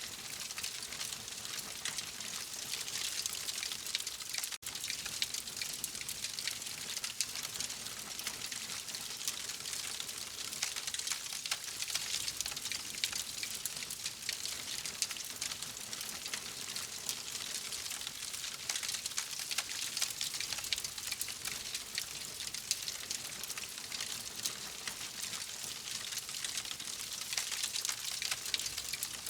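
Wood fire crackling steadily: a dense stream of small pops over a hiss, with a brief break about four and a half seconds in.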